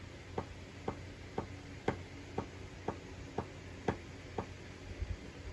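GarageBand's metronome clicking at 120 beats per minute, two clicks a second with a louder click on the first beat of each four-beat bar; it stops about four and a half seconds in. This metronome click is the 'clipping sound' that the video sets out to remove from recordings.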